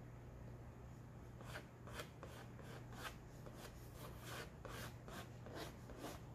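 White chalk scratching across black poster board in a run of short strokes, about three a second, starting about one and a half seconds in, over a low steady hum.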